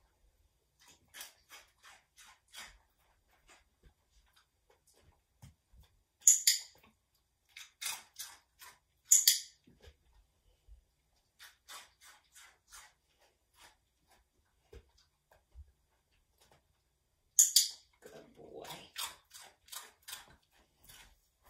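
Light clicks and taps in small clusters as a dog steps and pivots on a small raised training perch on carpet, with three louder sharp clicks among them.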